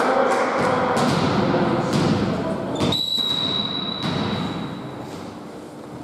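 A volleyball referee's whistle gives one long, steady blast about three seconds in, the signal for the serve. Before it, thuds of a volleyball and players' voices echo around the gym hall.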